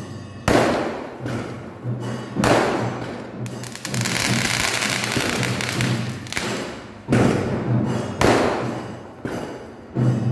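Aerial fireworks going off: four sharp bangs, each fading out in an echoing tail, and a stretch of continuous hissing crackle in the middle. A steady low hum or music runs underneath.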